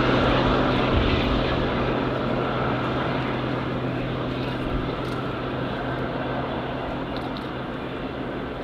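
Diesel locomotive hauling a train away, its engine holding a steady low drone over the rumble of wheels on rails, the whole sound fading steadily as it recedes.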